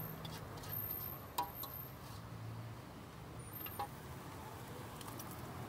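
Metal spatula stirring and tossing fried noodles in a steel wok, striking the pan with a ringing clink about a second and a half in and again a couple of seconds later. A low steady hum runs underneath.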